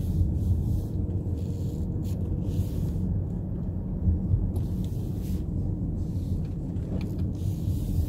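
Car driving along a road, a steady low rumble of engine and tyre noise.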